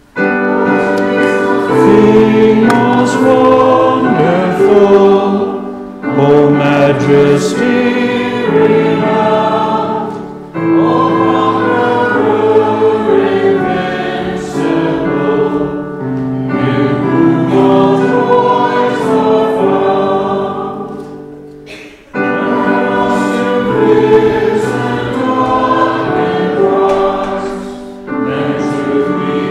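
A choir singing a hymn together, line by line, with brief breaths between the phrases.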